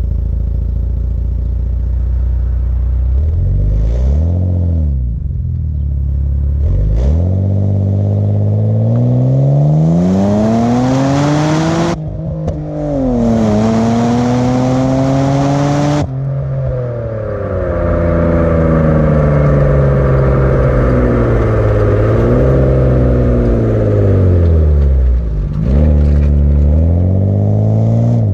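Mitsubishi Legnum VR-4's twin-turbo V6 through its stock exhaust, revving: two short blips, then a long climb in revs with a brief dip in the middle. The revs cut off and fall away, followed by a couple more blips near the end.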